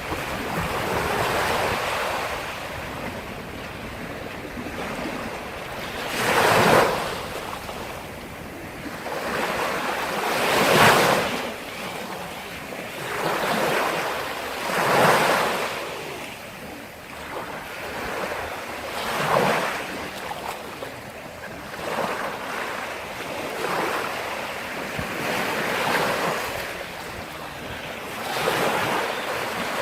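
Sea waves breaking on the shore, one loud surge of surf every four seconds or so, over a steady wash of water.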